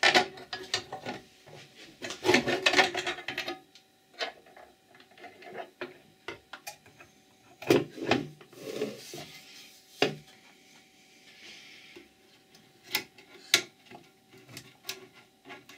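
The sheet-aluminium internal chassis of an oscilloscope, with its power supply attached, is lifted and moved about by hand. Metal scrapes and rubs against the case and frame in irregular stretches, with sharp knocks and clicks scattered throughout.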